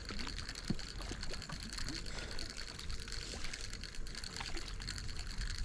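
Waterside ambience: a steady wash of wind and water noise with a low rumble, a constant high-pitched hum and faint, scattered voices.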